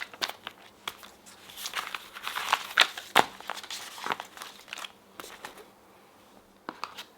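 Packaging being handled: crinkling and rustling with many small clicks and taps, dying down for a second or two before a few last clicks near the end.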